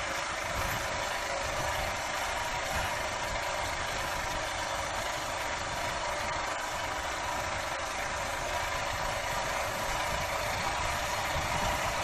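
Royal Enfield motorcycle engine running steadily while riding, with a steady hiss of wind and tyre noise over it.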